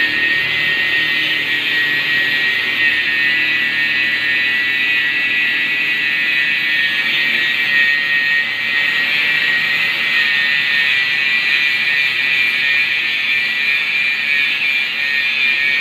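Shielded metal arc (stick) welding arc burning steadily with a continuous hiss.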